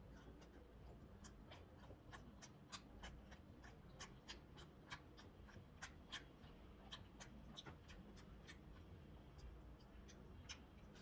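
Faint, close-miked eating sounds of chicken momos being chewed: irregular sharp wet mouth clicks, a few a second, over a low steady background.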